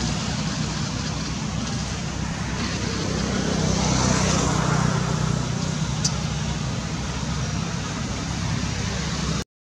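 Steady background road-traffic noise with a low engine hum, cut off abruptly near the end; a single faint click about six seconds in.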